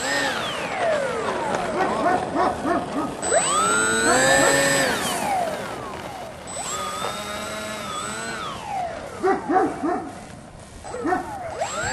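Twin Turnigy 1400 kV brushless electric motors with propellers on a scratch-built RC plane spooling up and down under throttle during a ground taxi. Two long rising whines are each held for a second or two and then fall away, with clusters of quick short blips between them.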